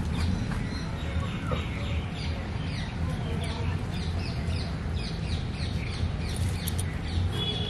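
Birds calling in quick, short falling chirps, several a second, over a steady low rumble.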